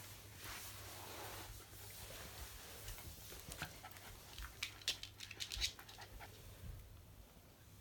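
Shiba Inu dog panting softly, with a run of quick light clicks in the middle.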